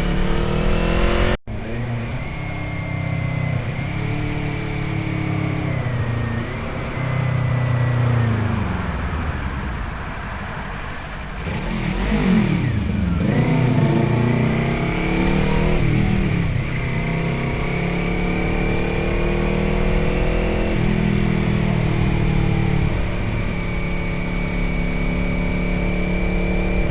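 Motorcycle engine and exhaust heard from the saddle while riding, its pitch climbing and then falling again and again as the rider accelerates and shifts gears. About halfway through it slows right down before pulling away again.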